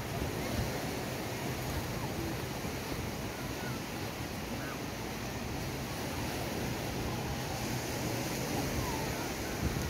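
Steady beach ambience: an even wash of surf and wind, with faint scattered voices of people in the distance.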